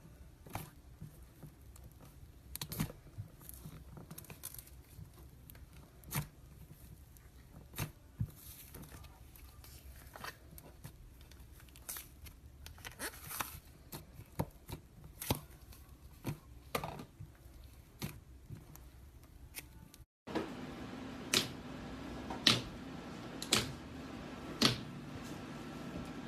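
Slime being poked and pressed by hand: scattered sticky clicks and small pops. About twenty seconds in the sound cuts to another clip where the clicks come louder and more regularly over a steady low hum.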